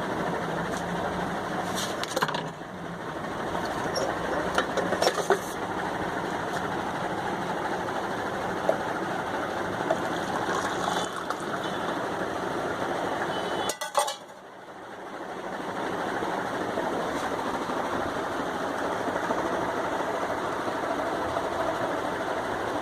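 A steady hiss with a few sharp metallic clinks, like utensils against a pot or cup. The hiss breaks off just after a clink about two-thirds of the way through, then slowly returns.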